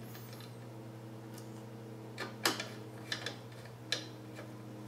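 A handful of sharp metallic clicks and taps, about five between two and four seconds in, as a screwdriver drives a screw through the case's top panel into the 240 mm radiator. A steady low electrical hum runs underneath.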